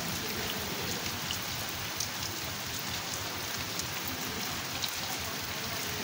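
Heavy rain falling steadily on wet ground and brick walls: an even hiss with a few sharper drop ticks.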